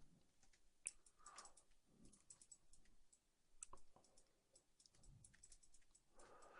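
Faint, scattered clicks of a computer mouse and keyboard, irregular and a few to the second, with near silence between them.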